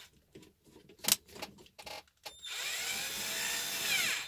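A cordless drill turning the drivetrain of a WPL B-36 Ural RC truck, its gears and freshly greased driveshafts. It starts about two and a half seconds in with a whine that rises and then falls in pitch. Before that come a few light clicks, one sharp click about a second in.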